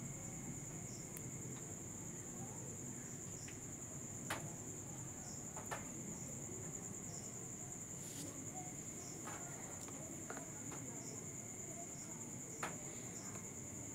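Crickets trilling steadily in a continuous high-pitched drone, with a few faint soft clicks scattered through it.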